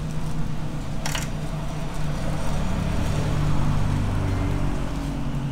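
Steady low rumble of vehicle traffic, with a brief scratchy noise about a second in.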